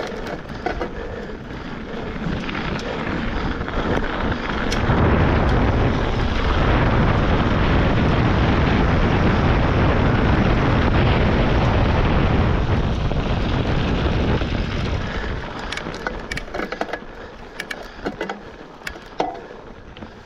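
Wind buffeting a handlebar-mounted camera's microphone and tyres rolling as a mountain bike rides a frozen sandy trail. The rush swells to its loudest about five seconds in and eases off after about fifteen seconds, with scattered clicks and rattles near the end.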